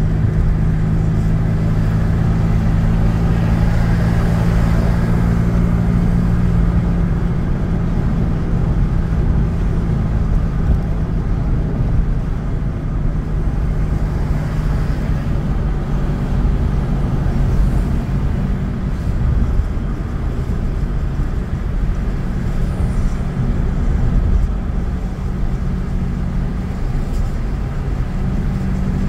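Motor vehicle driving along a road: a steady low engine hum over constant tyre and road noise. The hum is strongest for the first seven seconds or so, then eases.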